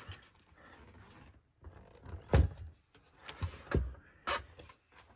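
Plastic-and-metal case of an HP 54600-series oscilloscope knocking and thumping against the workbench as it is turned around and set upright: a handful of short, sharp knocks, the loudest about two and a half seconds in.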